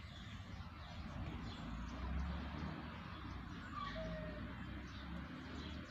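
Outdoor background noise: a steady low rumble with a few faint, short bird chirps, a pair of them about four seconds in.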